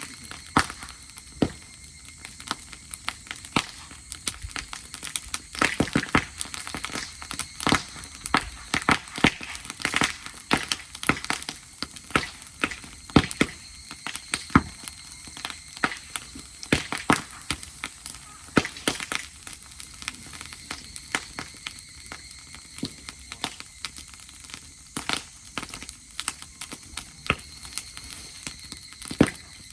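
Bonfire of dry grass crackling, with irregular sharp snaps and pops coming several times a second.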